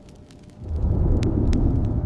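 Deep, low underwater ambience rumble that swells up about half a second in, with scattered sharp clicks above it.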